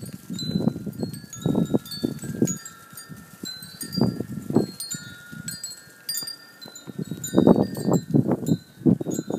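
Wind chimes ringing, several overlapping tones held steadily. Over them come repeated short rustling bursts close to the microphone from a puppy moving about in the snow. The bursts are loudest near the end.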